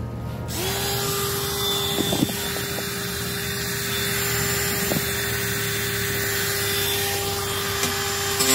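A Black & Decker rotary tool with a grinding stone switching on about half a second in and running at a steady high speed with a steady whine. Right at the end, it gets louder and rougher as the stone is put to the cut edge of the steel bed rack to take off the burrs.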